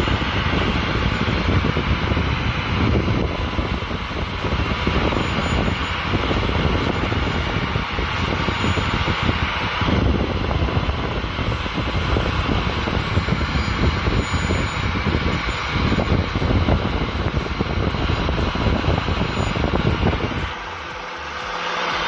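Angle grinder fitted with a wood-carving attachment, running and grinding down a goat's hoof. The grinding noise is steady and loud, and cuts off shortly before the end.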